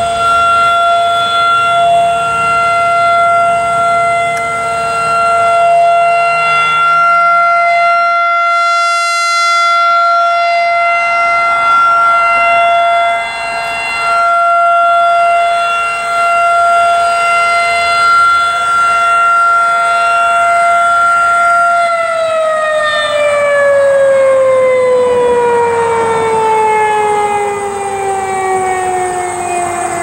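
Federal Signal 2001-SRN rotating outdoor warning siren sounding a steady single tone for its short-alert test, with its loudness dipping now and then as the horn turns. About two-thirds of the way through it shuts off and winds down, its pitch falling steadily.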